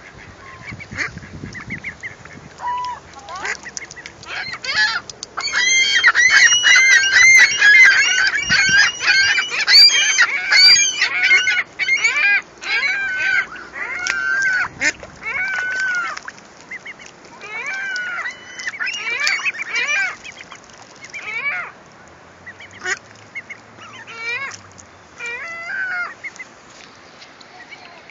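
Young mallard ducklings peeping in many short, high calls. They swell into a dense chorus about five seconds in, then thin out past the middle into scattered calls.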